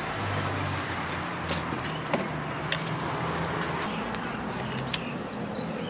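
Steady low engine-like hum over outdoor background noise, with a few light clicks and taps, the sharpest about two seconds in and again a little later.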